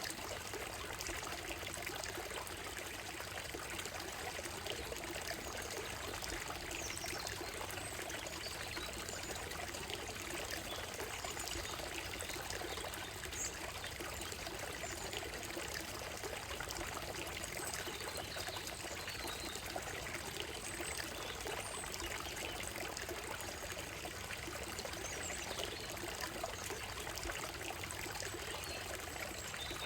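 Shallow stream running over a gravel and stone bed: a steady, even babbling and trickling of water.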